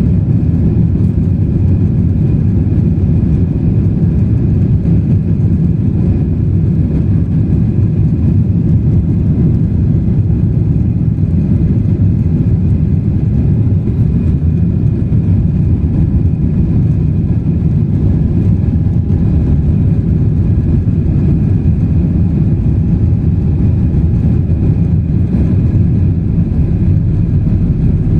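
Airplane engines during takeoff: a steady, loud low rumble with a faint high whine over it, holding level without rising or falling.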